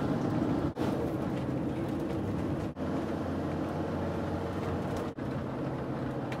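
Car driving along a road, heard from inside the cabin: steady engine and tyre noise with a low drone, broken by three brief drops in sound.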